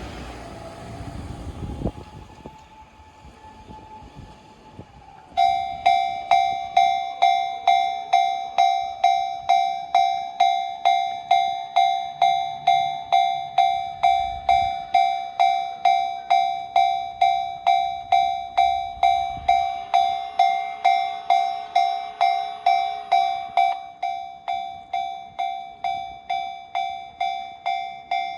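Japanese railway level crossing warning bell starting about five seconds in, clanging at about two strikes a second with a ringing metallic tone. It is a little quieter near the end.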